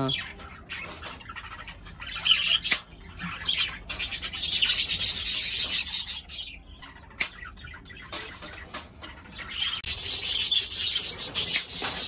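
Metal cage wire being cut through to make a nest-box entrance hole: stretches of rapid, high rasping strokes, with two sharp clicks in between. Cockatiels call in the background.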